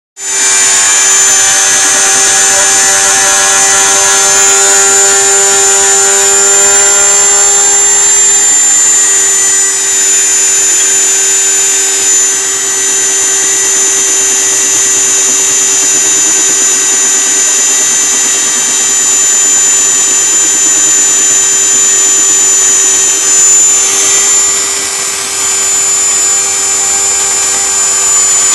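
CNC milling machine running: a loud, steady whine of several fixed high tones, whose mix thins slightly about eight seconds in.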